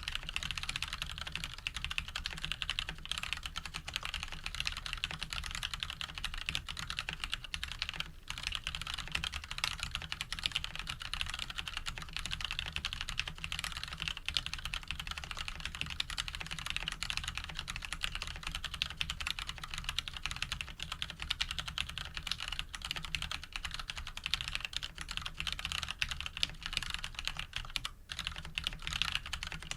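Mechanical keyboard with lubed Cherry MX Brown switches, a steel plate and Cherry stabilizers being typed on quickly and without a break: a dense stream of key clacks, with short pauses about eight seconds in and near the end.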